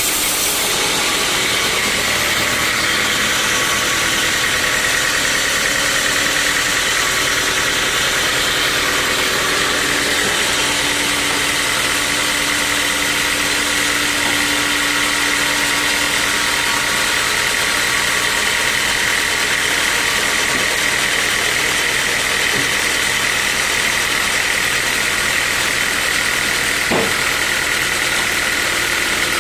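Sawmill saw running steadily with a high, even whine over a constant hum. A single short knock comes near the end.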